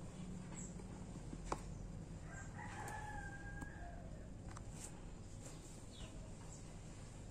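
A rooster crows once, faintly, from about two and a half seconds in, a single held call lasting just over a second. A sharp click comes about a second and a half in, with a few lighter clicks later, from steel tweezers touching the watch movement.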